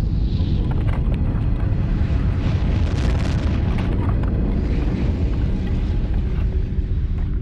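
Deep, continuous rumbling roar with faint scattered crackles: a sound-design rumble for comet fragments hurtling through space.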